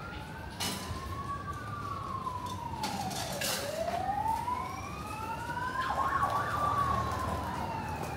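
Emergency vehicle siren wailing, its pitch sliding slowly up and down about every three seconds, with a brief rapid warble about six seconds in. A couple of sharp knocks sound in the first half.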